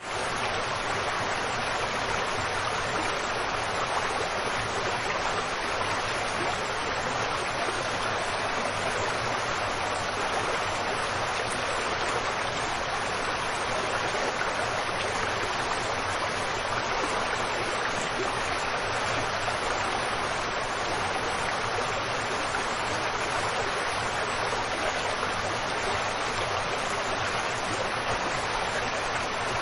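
Waterfall: a steady, unbroken rush of falling water, bright and hissy rather than deep.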